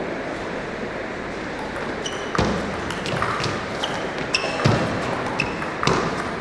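Table tennis rally: the celluloid ball clicks sharply off the table and the bats about once a second from about two seconds in, over a steady murmur of the hall. A few heavier thuds fall among the hits.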